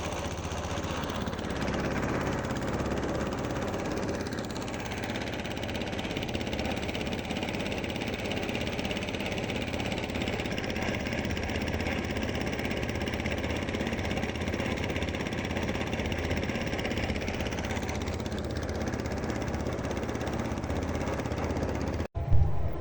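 An engine running steadily at an even level, cutting off abruptly near the end.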